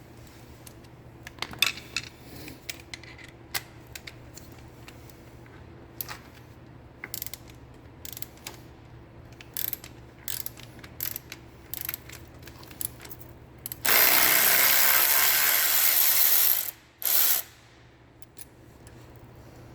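Hand ratchet wrench clicking in short spells as bolts on a motorcycle's rear brake pedal assembly are worked, then a loud, rapid run of ratcheting lasting nearly three seconds about 14 seconds in, with a brief one just after.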